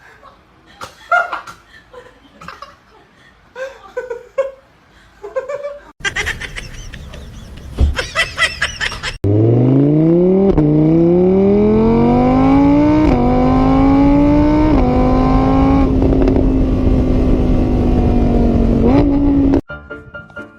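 Car engine accelerating hard through the gears, its pitch climbing in steps with a dip at each shift, then holding steady at speed before it cuts off abruptly near the end. Before it come scattered short, quieter sounds.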